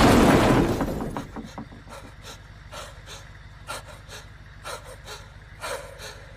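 The tail of a loud crash noise dies away in the first second. Then a young man's voice pants in short, ragged, frightened breaths.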